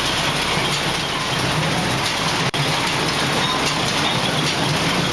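Ride-on miniature train running, heard from a carriage: a steady rumble and rattle of the moving train, broken by a brief dropout about halfway through.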